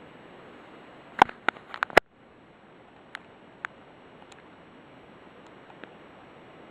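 A quick cluster of sharp clicks and knocks about a second in, then a few faint ticks, over a steady hiss; no alarm is sounding.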